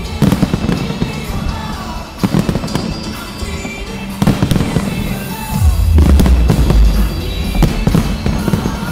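Large fireworks display: sharp bangs and crackling shell bursts, with a deep rumble swelling after the middle, over loud music.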